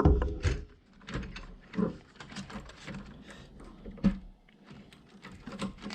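Packaging being handled and turned over: irregular plastic and cardboard rustles and clicks, with a knock at the start and another about four seconds in.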